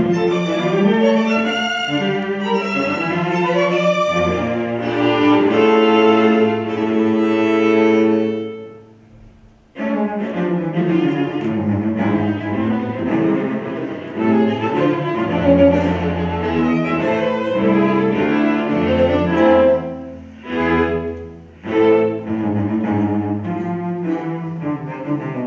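String quartet of two violins, viola and cello playing live. The music dies away about eight seconds in and breaks off for about a second, then comes back in. It has two brief breaks about twenty seconds in.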